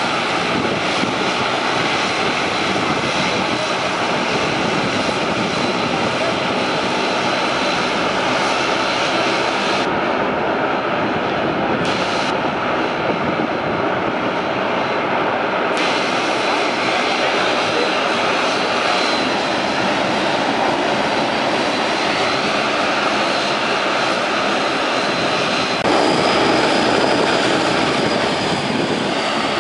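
Bombardier Q400 turboprop taxiing, its Pratt & Whitney PW150A engines and six-bladed propellers running with a steady whine. The sound gets a little louder near the end.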